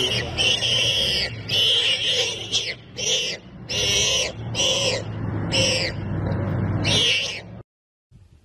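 Warthog squealing in distress while seized by lions: a run of high, shrill squeals, about one a second. It cuts off suddenly near the end.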